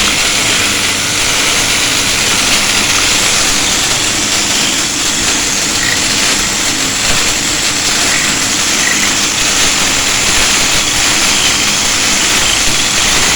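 Electric angle grinder running steadily at full speed, a loud, even motor whine and hiss; it keeps running although its housing has been ground partly away and drilled through.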